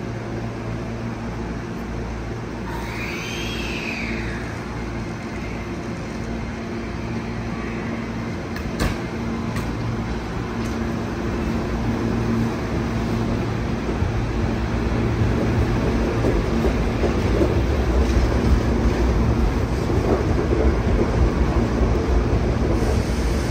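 Hankyu electric commuter train running, a steady low rumble and hum that grows louder over the second half. A brief high tone rises and falls about three seconds in, and there is a sharp click near the middle.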